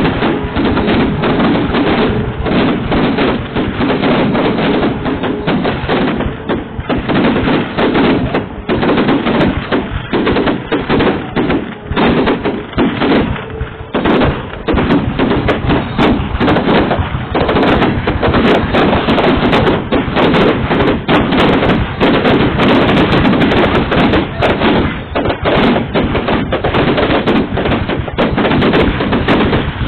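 Fireworks going off in a dense, continuous barrage of bangs and crackles, with many reports overlapping.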